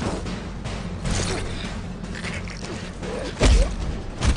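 Two people fighting hand to hand in sand: scuffling and struggling, with a heavy thud about three and a half seconds in and a shorter thud near the end.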